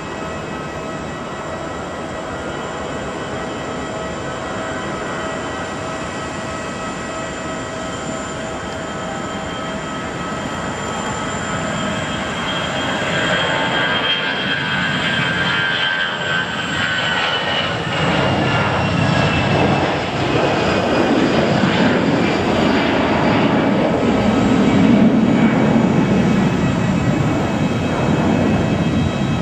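Airbus A320-211's CFM56 turbofan engines at takeoff power: a steady whine at first, growing louder as the jet rolls down the runway. About halfway through the whine drops in pitch as the jet passes, and in the second half a deep, low jet rumble takes over as it climbs away.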